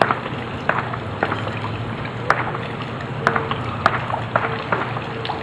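Pool water sloshing and lapping in small, irregular splashes around a person standing in it, over a steady low hum.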